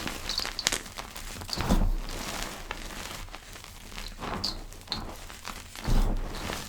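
Powder being crushed and crumbled, giving soft crackling and crunching. Two heavier muffled thumps come about two seconds in and near the end.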